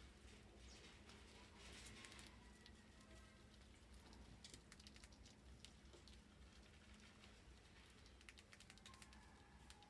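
Faint patter of small clicks and scratches from rodents' claws and feeding on the plastic bottle rim and wooden ramp, irregular and continuous.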